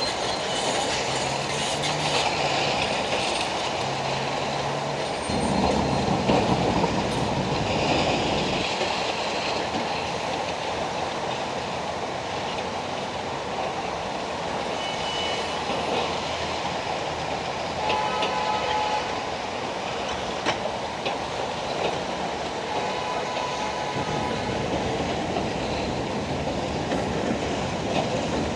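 Heavy demolition machinery working: a steady engine rumble with grinding and clattering, growing louder for a few seconds early in the stretch, and brief high metallic squeals now and then.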